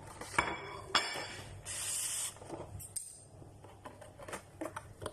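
Tableware being handled: two sharp ringing clinks about half a second apart, then a short hiss about two seconds in, followed by scattered light clicks and taps.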